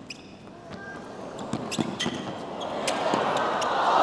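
Tennis rally on a hard court: sharp racket strikes and ball bounces with short shoe squeaks. Crowd noise swells over the last second or so.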